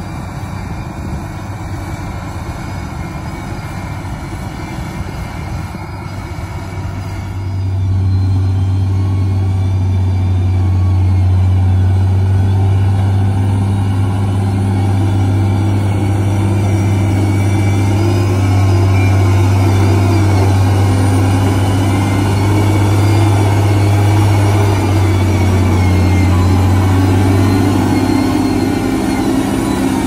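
Diesel engine of a LiuGong 4200 motor grader running steadily under load as the machine works over broken soil, a deep even drone. It grows clearly louder about a quarter of the way through and stays loud.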